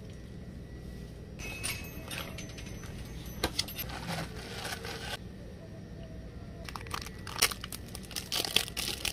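Ice cubes clinking and rattling in a plastic cup as a straw is pushed through the lid and stirred, with sharp clicks. Near the end a clear plastic sandwich package crinkles and clicks as it is picked up.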